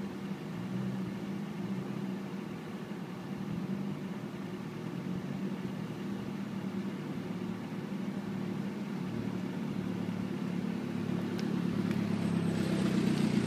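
A steady low mechanical hum, then a compact SUV's engine and tyres growing louder near the end as the vehicle drives up close.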